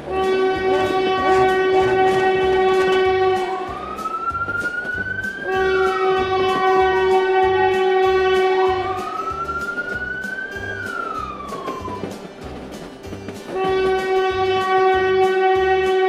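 Electronic toy-train sound effects. A steady horn tone is held for about three and a half seconds three times, with two slow rising-then-falling whistle sweeps in between, over a regular chugging beat of about two a second.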